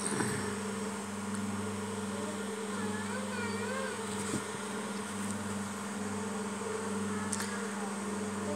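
Steady low electrical buzzing hum. Faint wavering higher tones come and go about three seconds in.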